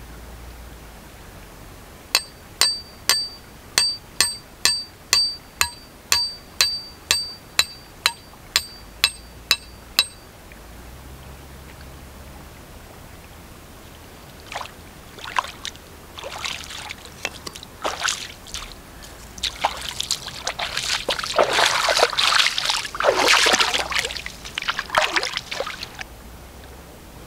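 A small metal bell rings in a steady series of strikes, about two a second for some eight seconds. After a pause, water splashes and pours for about ten seconds, loudest near the end.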